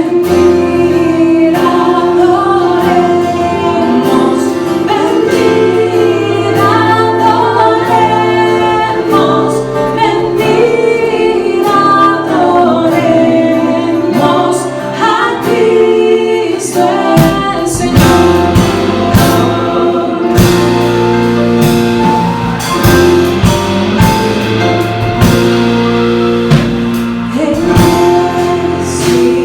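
Choir singing a Christmas hymn over instrumental accompaniment. A little past halfway a drum kit and a deeper bass come in.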